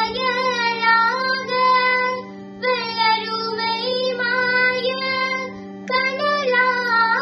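A young woman singing a Tamil song solo, in long gliding, ornamented phrases over a steady low drone. Her voice breaks off briefly twice, about two and a half and six seconds in, while the drone carries on.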